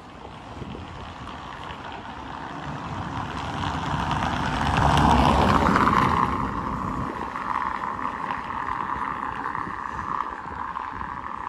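A car driving past, a taxi. Its tyre and road noise swells to a peak about five seconds in, then fades away.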